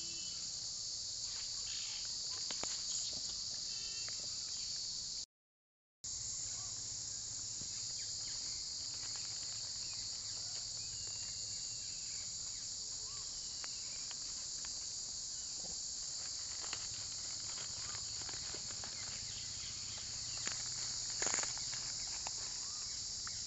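Steady high-pitched chorus of insects, with faint scattered rustles and clicks beneath it; the sound cuts out briefly about five seconds in.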